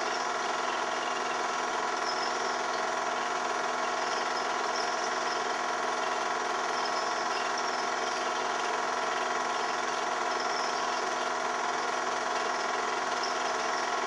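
Home-movie film projector running steadily, a constant mechanical whir made of several steady tones.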